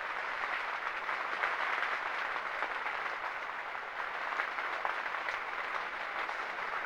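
Rain from a wind and rain storm: a steady, even hiss sprinkled with many fine ticks of drops.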